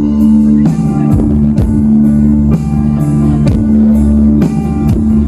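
Live rock band playing loudly: electric guitars holding a steady chord over bass, with a steady drum beat about twice a second.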